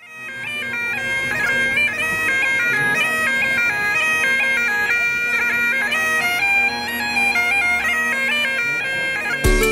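Great Highland bagpipes playing a tune: a stepping chanter melody over steady drones, fading in at the start. Just before the end it gives way to strummed guitar music.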